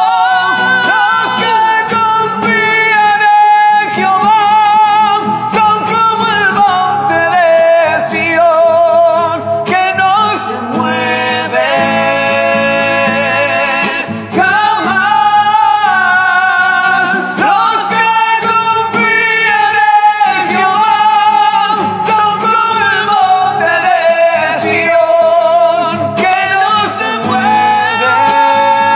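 A break without lyrics in a Latin American worship song (alabanza): a wavering lead melody over a steady accompaniment.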